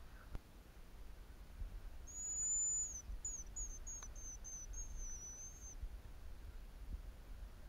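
Hazel grouse whistle song: a thin, high, drawn-out whistle, then a quick run of short whistled notes ending on a longer one. Starts about two seconds in and stops a little before six seconds.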